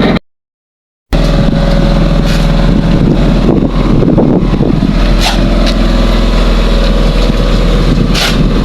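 An engine running steadily, after about a second of silence near the start.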